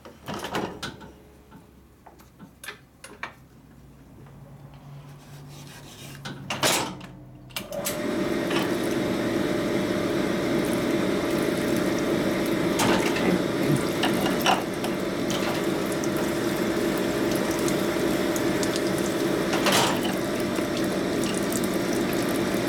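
Pin-honing machine honing a piston's wrist-pin hole to fit the pin: a few handling clicks and knocks, then about eight seconds in the hone starts and runs steadily.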